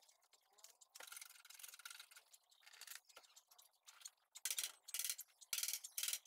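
Hand rubbing or scraping strokes on a car's front fender and wheel-arch area: faint at first, then from about two-thirds of the way in a run of short, even strokes, about two a second.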